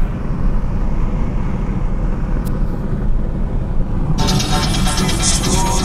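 Mercedes-Benz SL500's V8 and road noise heard inside the cabin at highway speed, a steady low rumble. About four seconds in, music starts over it.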